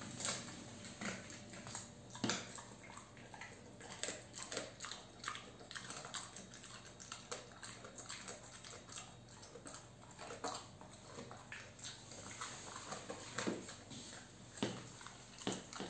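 A dog gnawing and crunching on a chew treat held between its front paws: irregular clicks and crunches throughout, a few of them louder, over a faint steady low hum.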